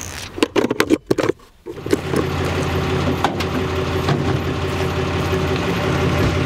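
A few sharp knocks in the first second or so, then a pickup truck's engine idling with a steady hum from about two seconds in.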